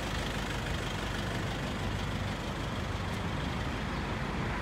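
Steady traffic noise from a wide city avenue, with a car driving past.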